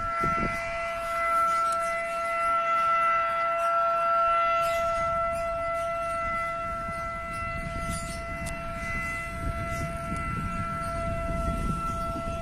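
Civil-defence warning siren sounding one steady, unbroken tone. It is the siren sounded simultaneously across Indonesia to mark the Independence Day commemoration.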